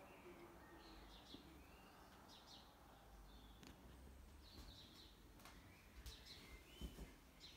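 Near silence: faint room tone with scattered short, high bird chirps and a couple of soft knocks.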